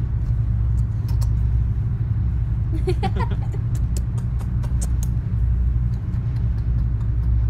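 Soft kissing smacks as a baby's hand and cheek are kissed, heard as scattered short clicks over a steady low rumble. A brief squeaky vocal sound comes about three seconds in.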